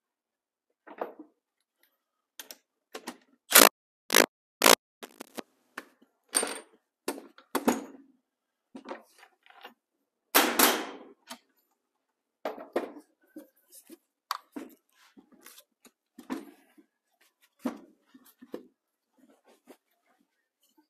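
Metal hand tools and parts knocking and clinking against a Suzuki TS185 engine's crankcase during teardown on the workbench: a string of sharp taps and knocks, the loudest three a few seconds in, with a longer clatter about halfway.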